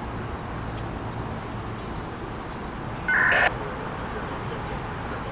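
Insects, crickets or similar, buzzing steadily in a high band over a low background rumble. One short, louder sound breaks in about three seconds in.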